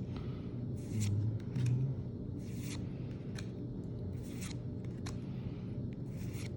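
Pokémon trading cards sliding over one another as they are flipped through one at a time, a short papery swish about every second. Two louder low bumps come about one and two seconds in, over a low steady hum.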